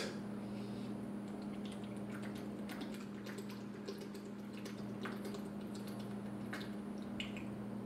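A person chugging from a plastic bottle: faint, irregular gulps, swallows and liquid glugs as the bottle is drained, over a steady low hum.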